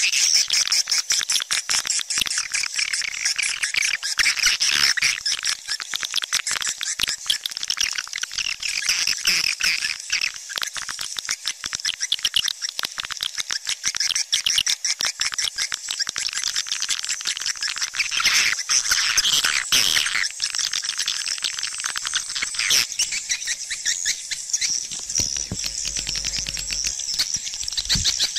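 Swiftlet calling sound: a dense, unbroken stream of rapid high chirps and twitters of swiftlets, the kind of call recording played in a swiftlet house to lure the birds in to roost and nest.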